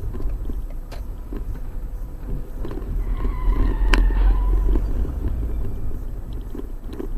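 Driving noise recorded by a dashcam inside a moving car: a low engine and road rumble that swells about three to four seconds in, with a sharp click about four seconds in.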